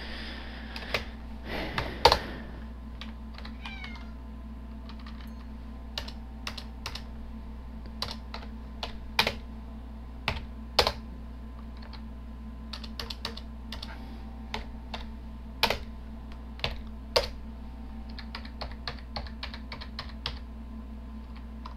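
Computer keyboard typing: runs of irregular key clicks with short pauses and a few harder strokes, over a steady low hum.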